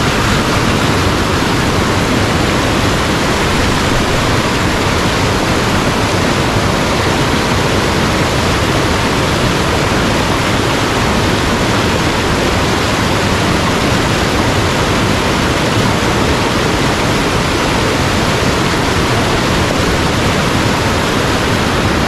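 Steady rushing of a mountain headwater stream's fast-flowing water, loud and unbroken.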